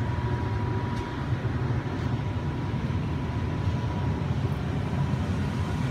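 York LX natural gas furnace running steadily, a continuous low rumble with a thin, faint high tone over it. It is working normally now that its loose wire harness has been pushed back in.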